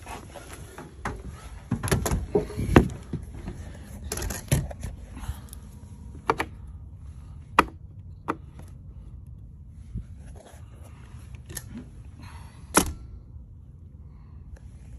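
Handling noise: irregular light knocks and clicks with some rustling and a low rumble, from a phone being carried and handled close to plywood panels.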